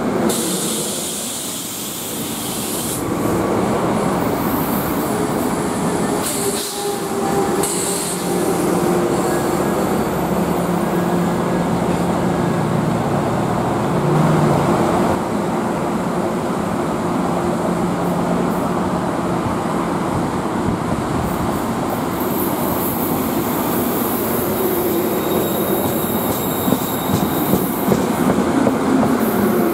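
New Jersey Transit commuter train of Comet V coaches rolling past along the platform, its wheels running over the rails with a steady rumble and clatter, and high wheel squeal at times, most near the start and in the last third.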